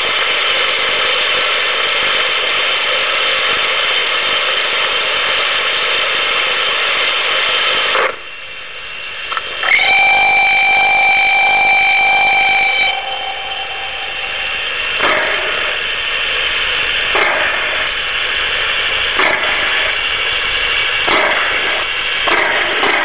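DCC sound decoder of an O-scale SNCF 141R model steam locomotive playing through its small speaker: a steady standing-engine sound for about eight seconds, then a whistle blast of about three seconds. After that come single exhaust chuffs about two seconds apart, coming closer together near the end as the engine starts to move.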